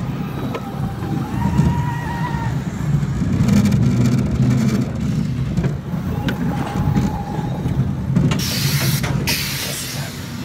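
Roller coaster car running along its track with a steady low rumble, and a loud hiss lasting about a second near the end.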